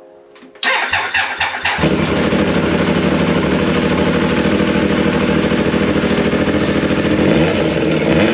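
Triumph Daytona 955i's fuel-injected inline three-cylinder engine being started: the starter cranks it for about a second, then it catches and runs steadily.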